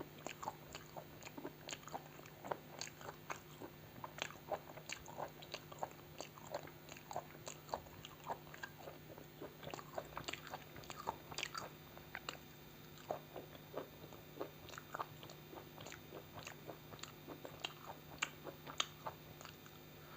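Close-miked eating of chicken gizzard and liver curry with rice: chewing and mouth sounds made of many irregular short wet clicks and smacks. A steady low hum runs underneath.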